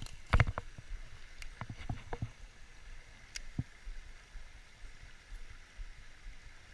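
Small rocky stream running over stones, a steady rush of water. A few sharp knocks come in the first two and a half seconds and one more a little after.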